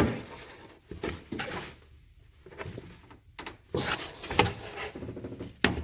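Irregular plastic clicks, knocks and rubbing as the engine air filter box and its push-pin fasteners are pulled and worked loose by hand.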